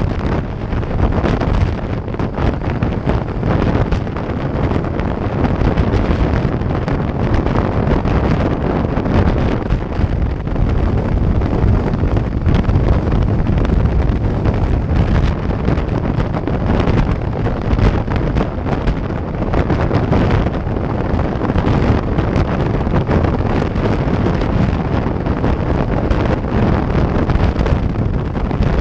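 Heavy wind noise buffeting a GoPro's microphone on a motorcycle at highway speed: a loud, steady rumbling rush with uneven gusts.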